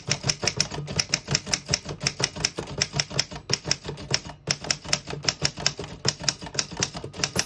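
A 1915 Corona folding portable typewriter being typed on: a quick, even run of sharp key-and-typebar strikes, about five a second, with a few short pauses.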